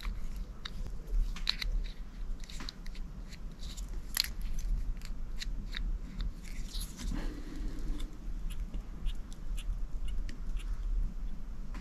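Irregular small clicks and snips of fly-tying work at the vise, as tools and materials are handled, over a low steady hum.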